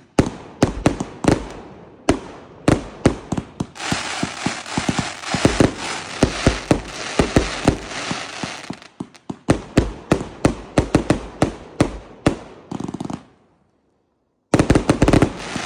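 Consumer aerial fireworks cake firing a rapid string of shots and bursts with crackling, dying away about 13 seconds in. After a brief dead silence, another volley of bangs starts near the end.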